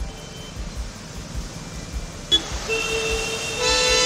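Car horns honking in traffic: one horn sounds about two and a half seconds in, then a second, louder horn joins near the end and holds steady. Under them runs the hiss of tyres splashing through floodwater.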